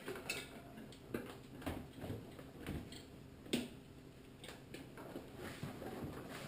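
Floor pump being worked to inflate a tubeless fat bike tire and seat its bead: a series of faint clicks and knocks, about one or two a second.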